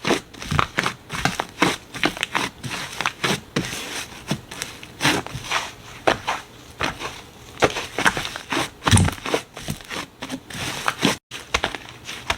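Slime being squeezed and poked by hand, giving an irregular run of sticky crackles and clicky pops, several a second. There is a brief break in the sound near the end.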